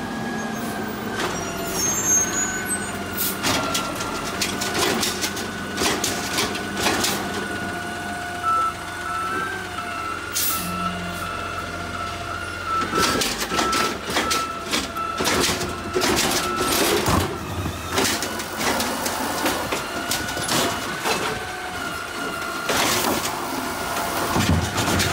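Automated side-loader garbage truck working a cart pickup: a steady hydraulic whine runs under repeated metallic clanks and knocks as the arm grabs, lifts and dumps a cart.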